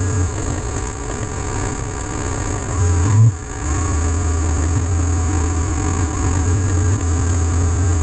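Motorcycle engine running steadily under way on a gravel road. About three seconds in its note rises briefly, then drops off suddenly and picks up again.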